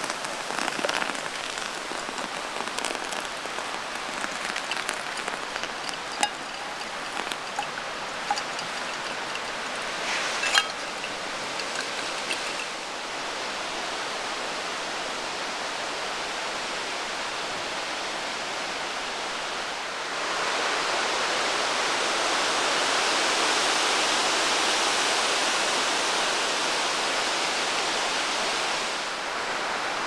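Hot water poured from a small camping pot into a paper coffee filter over an enamel mug: splashing with many small clicks and ticks, then the brew steeping in the filter. About twenty seconds in, a louder steady rushing hiss takes over until just before the end.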